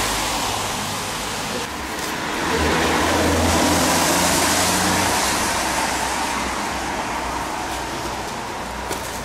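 A motor vehicle passing, its engine and tyre noise swelling about two and a half seconds in and fading after a few seconds, over steady street traffic noise.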